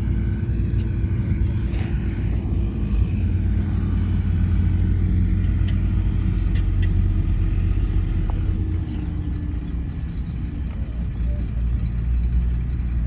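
Heavy diesel engine of earthmoving machinery running steadily with a deep drone, and a few faint light knocks.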